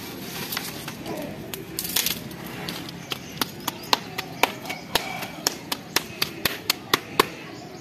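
A steady series of about sixteen sharp taps or slaps, about four a second, starting a little over three seconds in and stopping just after seven seconds.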